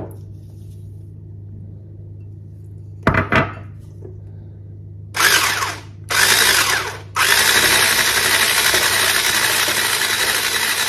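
Electric hand blender with a whisk attachment whisking psyllium into beaten egg in a ceramic bowl. It runs in two short bursts about five and six seconds in, then runs steadily from about seven seconds on. Two light knocks come about three seconds in.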